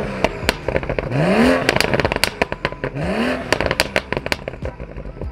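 BMW M135i's N55 turbocharged straight-six on a Bootmod3 stage 2 tune, revved twice with the car standing, each blip falling back into a string of sharp exhaust pops and crackles from the tuned pops-and-bangs map.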